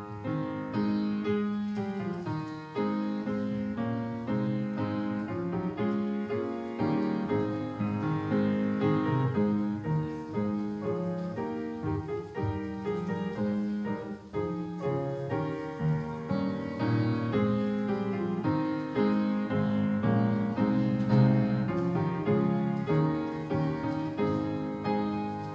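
Solo upright piano playing an introductory piece of melody over chords.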